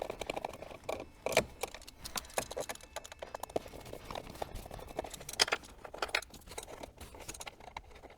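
Scattered small clicks and clinks of a screwdriver working T20 self-tapping screws out of a car's plastic centre console, with a few louder knocks.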